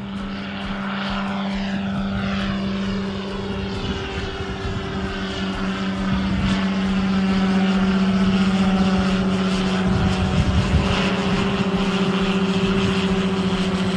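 Light propeller airplane engine running with a steady drone, growing louder about halfway through as the aircraft moves nearer.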